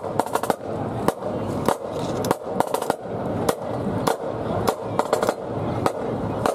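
Marching band drums playing a steady march beat, about one sharp stroke every half second or so, with short quick snare flourishes.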